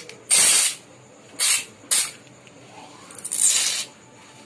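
Aerosol can spraying white foam in four short hissing bursts, the first and last a little longer than the two in between.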